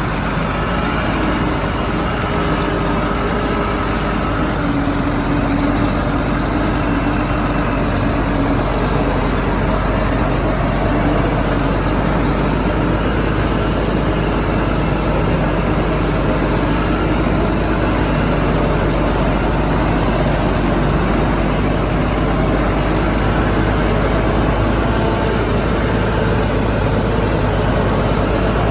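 Heavy diesel engine of earthmoving machinery running steadily, with some wavering tones in the mechanical noise.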